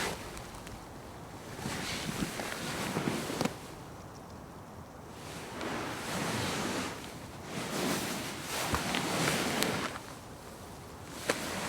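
A person shifting about on a couch: upholstery and cushions rustling in three swells of a second or two each, with a few sharp ticks, likely creaks from the couch frame.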